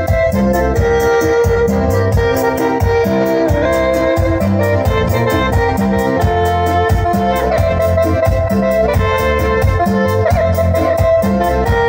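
Latin dance music over a PA sound system: an electronic keyboard carries the melody over a strong bass line and a quick, even beat.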